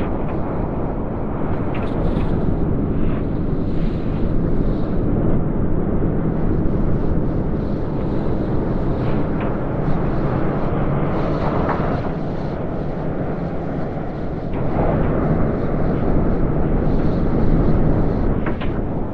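Blizzard wind: a dense, low rush of storm wind that swells and eases, growing louder for a few seconds past the middle.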